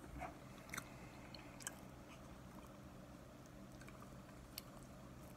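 Faint chewing of raw cornstarch: a few soft, sharp crunches and clicks of the starch between the teeth, with a faint low hum in the room.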